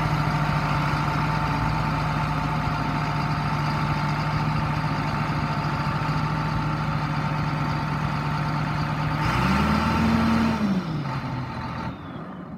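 Large John Deere tractor's diesel engine idling steadily, revved once about nine seconds in and settling back to idle within a couple of seconds. The sound dies away in the last second.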